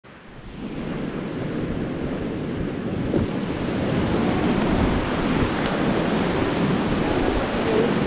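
Rushing river water, a steady dense wash, with wind buffeting the microphone.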